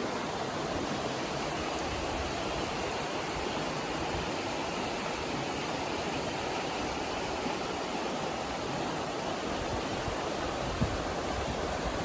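Creek water running steadily, a constant rushing with no change in level.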